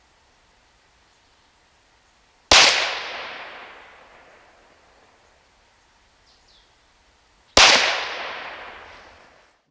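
Two shots from a .22 PCP air pistol, about five seconds apart, each a sharp crack followed by a long fading echo.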